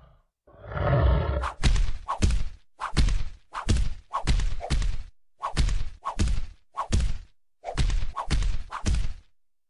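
A rapid series of sharp whacks, over a dozen, coming in quick pairs and triples, as a cat bats a dog's face with its paws. They are preceded by a short rough noise.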